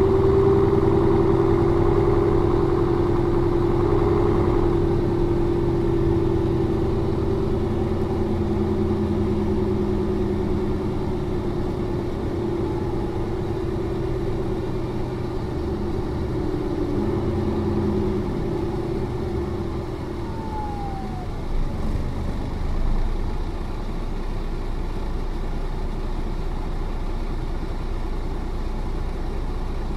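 Mercedes-Benz O405 N2 city bus's diesel engine running, its pitch falling slowly and fading over the first twenty seconds, then settling into a low steady rumble.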